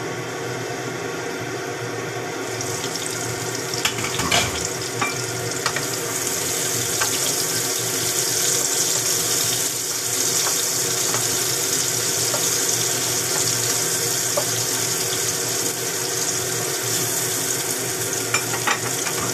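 Sliced mushrooms sizzling in hot oil in a wok, the sizzle growing louder a few seconds in once the lid is off. A wooden spatula scrapes and knocks against the pan as they are stirred, with a few sharp knocks about four seconds in and again near the end.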